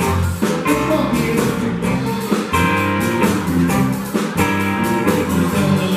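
Live rock band playing with a steady beat: drum kit, electric bass, electric and acoustic guitars.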